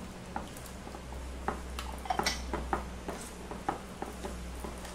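Metal spoon clinking and scraping against a bowl while stirring a thick semolina and curd batter with water just added: irregular light clinks, with a few sharper ones in the middle.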